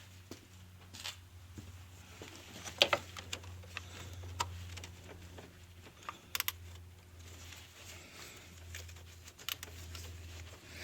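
Scattered light clicks and taps of hands handling small parts and tools around an engine bay, with the sharpest click about three seconds in and a quick cluster of clicks a little past halfway, over a low steady hum.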